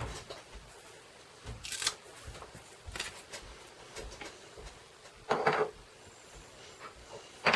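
Light, scattered taps and clicks of hand stamping: a clear acrylic stamp block and paper handled on a craft table, with one louder knock about five seconds in.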